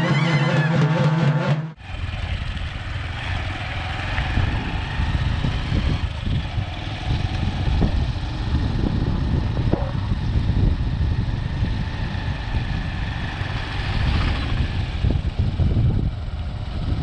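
Traditional festival band music that cuts off abruptly about two seconds in, followed by a motorcycle riding along a road, a rough low rumble with no clear engine note.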